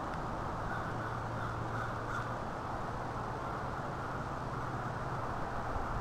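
Crows cawing faintly a few times in the first couple of seconds over steady background noise with a low hum.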